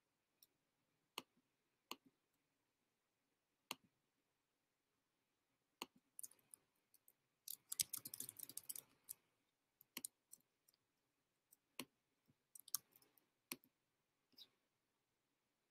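Faint clicking at a computer, single mouse clicks every second or two, with a quick run of keystrokes about eight seconds in.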